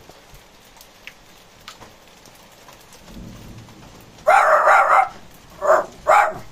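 Steady rain with scattered drips, a faint low rumble of thunder about three seconds in, then a Jack Russell terrier barking at the thunder: one drawn-out bark followed by two short ones.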